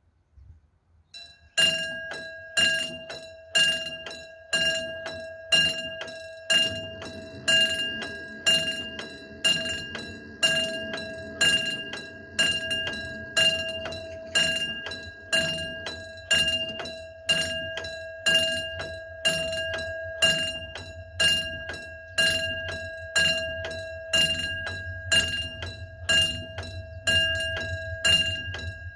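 A railway warning bell ringing steadily, about one stroke a second, each stroke a clear metallic ring that dies away, signalling an approaching train. Underneath, a low rumble sets in a few seconds after the bell starts and grows toward the end as the diesel-hauled train draws nearer.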